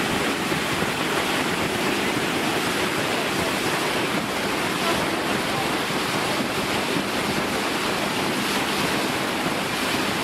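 Steady rush of wind and water aboard a boat on open water, with wind buffeting the microphone and a faint low engine hum underneath.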